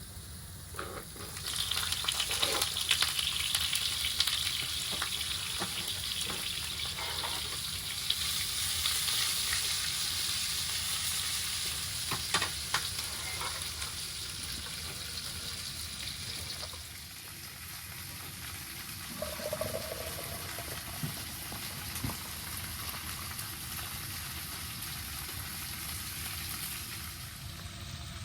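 Food sizzling in a frying pan: a steady hiss with scattered sharp pops and crackles that settles to a quieter sizzle partway through.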